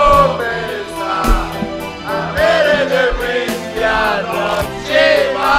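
Music: a song with singing over a steady beat.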